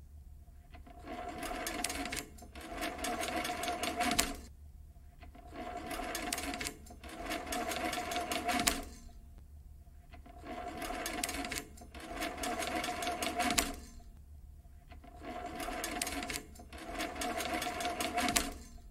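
Rapid mechanical clattering over a steady hum, like a small motor-driven machine, coming in four spells about four to five seconds apart, each spell made of two bursts with a short break between them.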